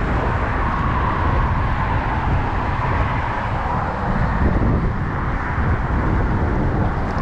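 Steady wind rumbling on the microphone, mixed with road noise from traffic crossing the nearby highway bridge.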